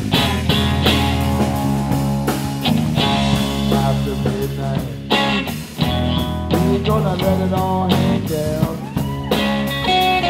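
Live blues-rock trio playing: electric guitar over bass guitar and drums, with bending notes in the second half.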